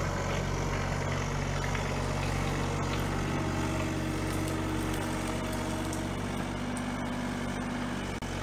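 Kubota compact excavator's diesel engine running steadily as the machine works.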